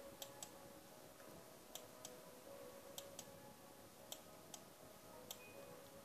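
Faint clicks of a computer mouse, about eight sharp clicks, several in close pairs, over a faint steady hum.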